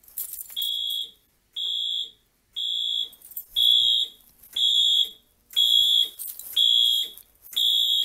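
Fire alarm horn/strobe sounding a string of short, high-pitched beeps, about one a second. This is the walk-test pulse count that the panel sends out to signal which initiating point was just activated.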